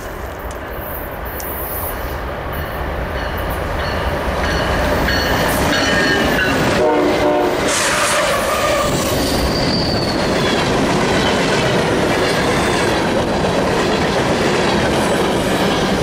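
Diesel freight locomotives approaching and passing close by, growing louder over the first six seconds. A short horn sound comes about seven seconds in, as the locomotives reach the microphone. Covered hopper cars then roll past with wheel clatter and some wheel squeal.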